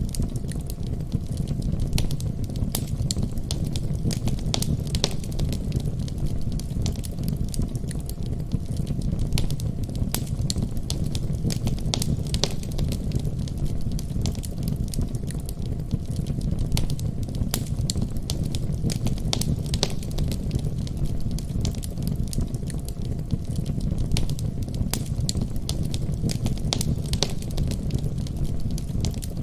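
Fireplace fire crackling, with irregular sharp pops and snaps over a steady low rumble.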